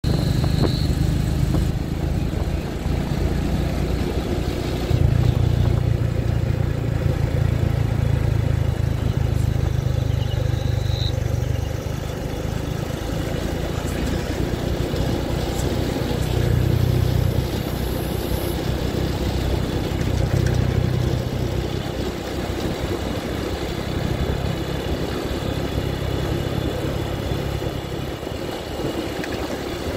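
A vehicle's engine running as it drives along a road, heard from on board. Its low hum swells and eases a few times with the throttle.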